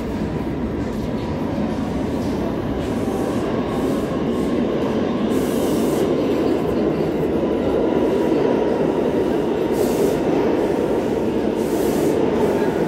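An R179 subway train arriving at the station, its rumble growing steadily louder as the cars run past. A faint steady wheel squeal rides over it, and short bursts of hiss come and go a few times.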